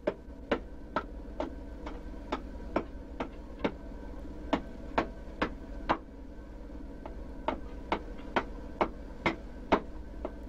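Wooden-handled adze chopping into a wooden carving, steady blows about two a second with two short pauses, over a steady low hum.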